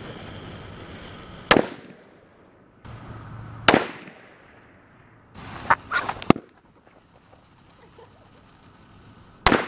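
Firecrackers going off in short separate bursts: one sharp bang about one and a half seconds in, another near four seconds, a quick run of three or four bangs around six seconds, and a last bang near the end, with a steady hiss between them.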